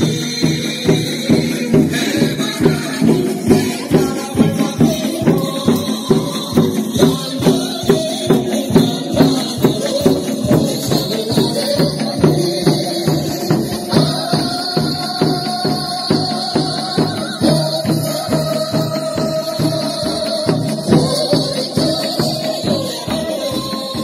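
Lively dance music with a steady beat of about two beats a second and a held melody line over it, played for square dancing.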